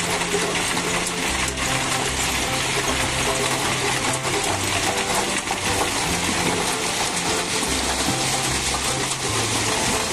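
Steady metallic rattling and running noise of a Caterpillar vibratory roller compacting ground, heard from the operator's seat, with background music and its bass line underneath.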